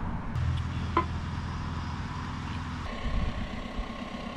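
Volkswagen camper van engine running, with a single short tick about a second in. Just under three seconds in, the sound changes abruptly to a rougher rumble with a faint steady tone.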